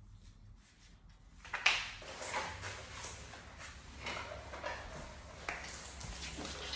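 Recordable dog talking button being hit. A sharp knock comes about one and a half seconds in, followed by a run of short bursts as the button plays back its recorded IG-12 droid 'yes' sound.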